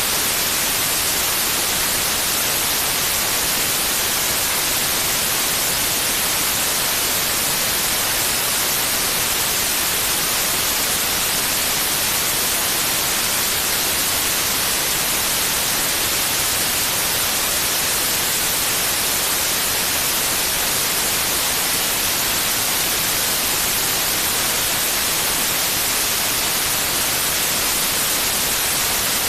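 Continuous white noise: a steady, even hiss, brightest in the high frequencies, with no change or break.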